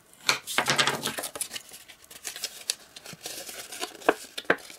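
Bone folder scraping along the scored fold lines of cardstock as they are burnished, followed by the stiff card rustling and crackling as it is creased and folded by hand, with two sharp clicks near the end.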